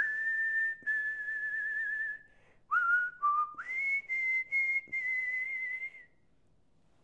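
A person whistling a short tune in two phrases. Each phrase climbs through a few notes to a long held high note that wavers slightly, and the whistling stops about six seconds in.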